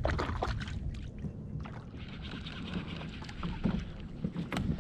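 Scattered small knocks and clicks of handling aboard a plastic fishing kayak, with wind rumbling on the microphone; one sharper knock near the end.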